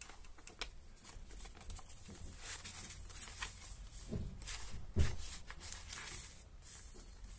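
Paper rustling and crinkling as the thick pages and paper flaps of a handmade junk journal are handled and turned. There are two soft thumps about four and five seconds in, the second the loudest.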